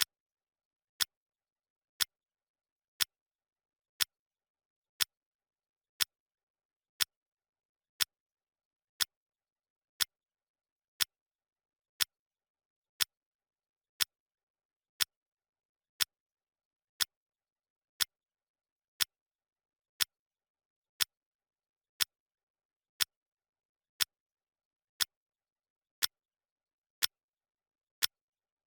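Clock-ticking sound effect of a countdown timer: one sharp tick each second, evenly spaced.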